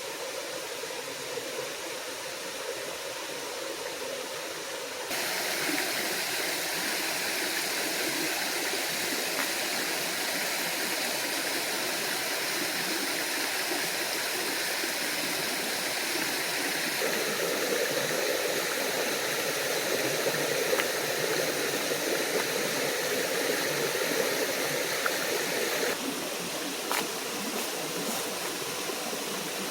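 Steady rush of water from a small forest stream and waterfall, stepping up suddenly in level about five seconds in and dropping back near the end.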